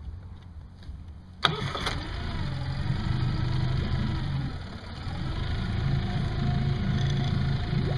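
Tohatsu four-stroke outboard motor starting abruptly about a second and a half in, then idling steadily while it warms up.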